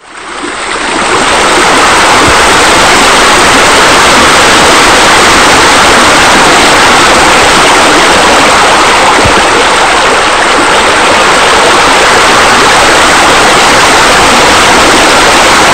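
Steady rushing, splashing water, a sound effect of the raised spa spilling over into the pool, fading in over about the first second and a half.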